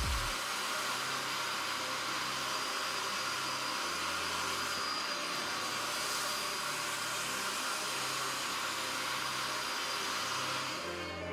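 Bissell SpotClean portable carpet extractor running with a steady rushing suction noise as its clear upholstery nozzle is drawn over carpet.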